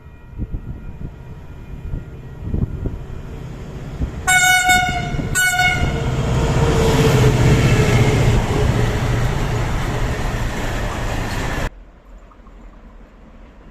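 Train horn sounded as a driver's greeting in two short blasts about four seconds in, the second a little shorter, over the rumble of the approaching train. The train then passes loudly with steady running noise, which cuts off suddenly near the end.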